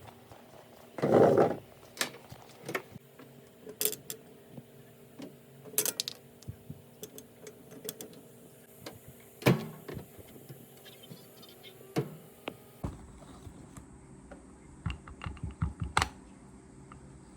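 Clicks, taps and light clatter of small household objects being handled, irregularly spaced, with one louder rustling knock about a second in and a quick run of clicks near the end.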